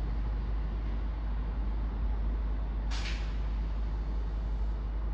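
East Midlands Railway Class 170 Turbostar diesel multiple unit running slowly, its engines a steady low rumble, with a brief hiss about three seconds in.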